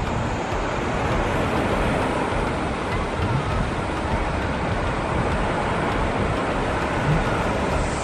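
Steady rush of small waves breaking on a sandy beach, the surf noise constant throughout.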